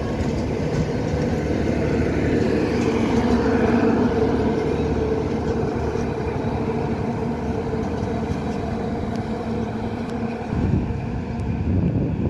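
Passing express passenger train's LHB coaches, steel wheels rolling on the rails with a steady rumble and faint clicks as the last coaches go by. A louder low rumble surges near the end.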